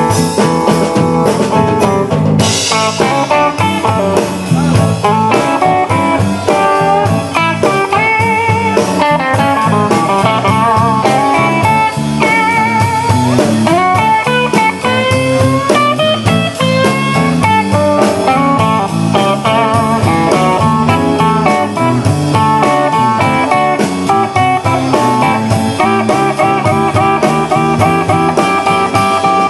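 Live blues-rock band playing an instrumental break: a lead electric guitar solo with bent and vibrato notes over bass and drums.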